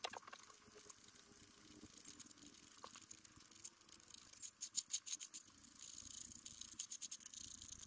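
Faint scratching with runs of quick clicks from epoxy resin filler being worked, the clicking thickest in the second half.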